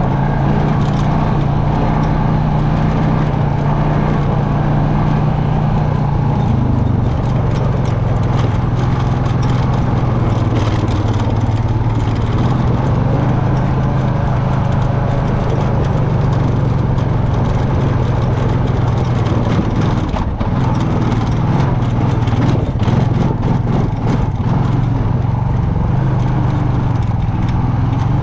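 ATV engine running steadily, with scattered knocks and rattles.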